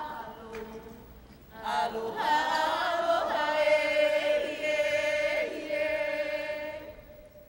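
Group of voices chanting a Hawaiian mele for hula kahiko, with long held tones and steps in pitch. The chant drops off briefly about a second in, returns louder, and fades near the end.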